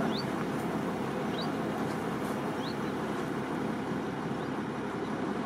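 Steady running noise of a small river ferry under way: engine drone and water churning in its wake. Early on there are three short, high, rising chirps, each about a second apart.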